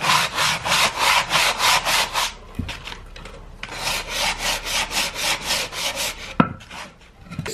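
Sandpaper rubbed back and forth by hand over a plank of pallet wood, sanding off its rough edges, in quick scratchy strokes about five a second. The strokes break off for about a second after two seconds and then resume, and a knock sounds near the end.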